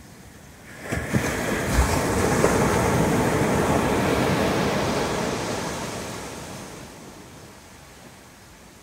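Ocean wave breaking on a sandy shore: a sudden crash about a second in, then the foaming wash, which fades away over the next few seconds.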